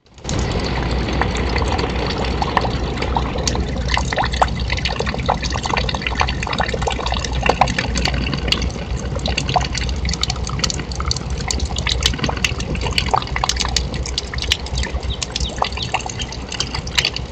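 Steady rain falling, with many short sharp drips and taps scattered through it.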